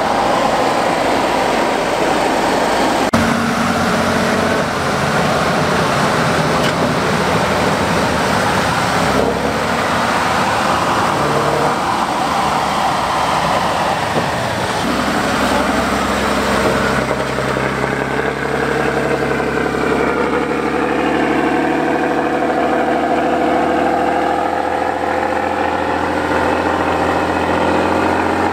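Eight-wheeled off-road trial truck's diesel engine working and revving as it climbs a steep muddy slope, its pitch rising and falling over the second half.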